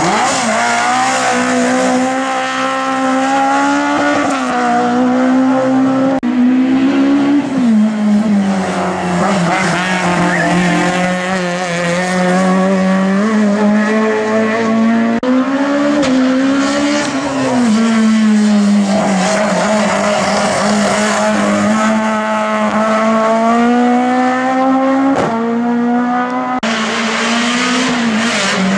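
Race car engine revving hard through a slalom course, its pitch climbing and dropping over and over as the driver accelerates, shifts and brakes between cones, with tyres squealing through the turns.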